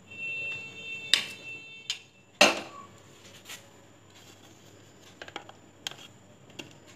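A metal spoon clinking against a bowl and a plastic divided serving tray as boiled potato pieces are pushed in: a ringing clink at the start, sharp knocks about one and two and a half seconds in, the second the loudest, then a few light taps.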